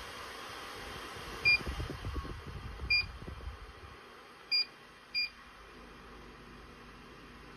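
KIAMI bladeless tower fan giving short high electronic beeps, four spaced a second or so apart and another at the very end, over the steady rush of its airflow, which drops off about four seconds in.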